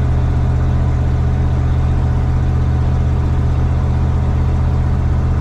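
Ford 302 V8, fuel-injected by a Holley Sniper EFI, running steadily with an even, low engine note and no revving.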